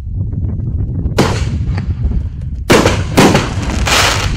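6-inch canister aerial firework shell bursting: loud bangs, one about a second in and three more close together near the end, each trailing off in a short hiss. A low rumble runs under them.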